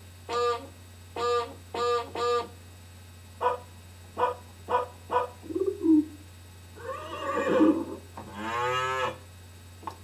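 A string of short sound effects played one after another: four short, identical pitched calls, then several quick pops, then a noisy sweep and a longer pitched call near the end, one of them like a cow's moo.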